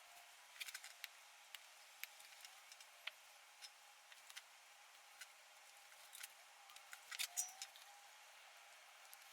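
Near silence with scattered faint clicks and small handling noises from hand work on wires, with a brief cluster of louder clicks about seven seconds in.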